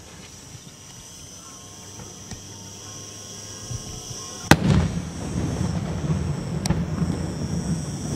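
Beraq aerial firework shell bursting with one sharp, loud bang about four and a half seconds in, followed by a low rolling rumble and a smaller crack about two seconds later.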